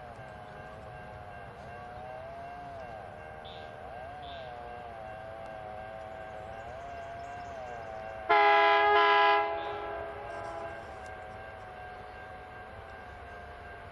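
A freight train's SCT-class diesel locomotives approach with a steady, slowly wavering drone. About eight seconds in comes one loud horn blast of just over a second, cutting off sharply with a short fading tail.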